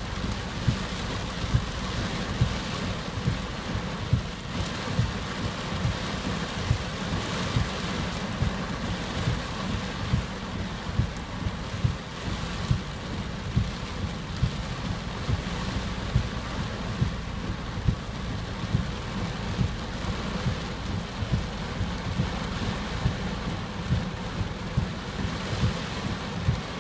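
Typhoon rain and wind: a steady rush of heavy rain, with frequent low thumps on the microphone, several a second, from gusts or drops striking it.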